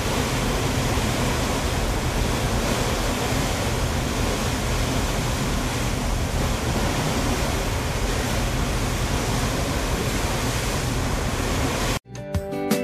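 Steady rushing of wind and sea water, with wind buffeting the microphone. It cuts off abruptly near the end, and strummed acoustic guitar music begins.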